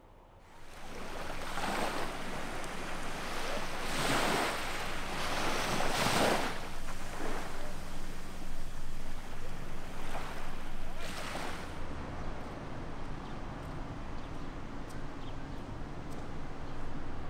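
Small sea waves washing onto a sandy beach, the surf swelling and falling in several surges. About twelve seconds in this gives way to a quieter, steady outdoor background with a faint low hum.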